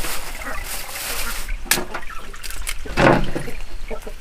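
A plastic bag of vegetables crinkling as it is handled, then two sharp knocks a little over a second apart, the second louder.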